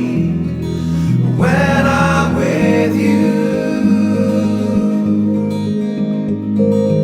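Background music: a song with guitar and a brief sung line.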